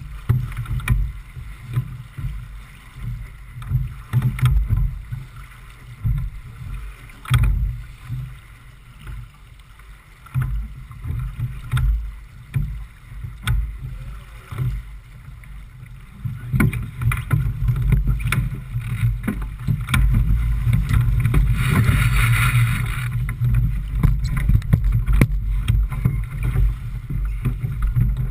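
Wind buffeting the microphone in uneven gusts, with the rush of water past a J/24 sailboat's hull and a few short knocks. A louder rush of water and spray comes about three quarters of the way through.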